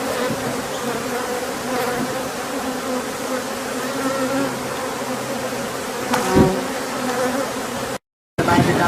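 Many honey bees buzzing steadily around opened hives where honey frames are being taken. There is a short knock about six seconds in, and the sound cuts out for a moment near the end.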